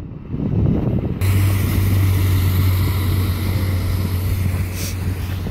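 Diesel multiple unit's engine running with a steady low hum, setting in abruptly about a second in over a low rumble.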